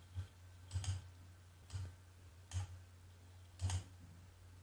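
Computer mouse buttons clicking faintly, about once a second, some clicks doubled as the button is pressed and released, over a faint steady low hum.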